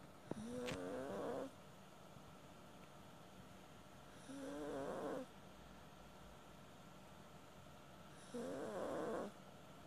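Maltese dog snoring in its sleep: three snores about four seconds apart, each lasting about a second. A brief click comes just before the first.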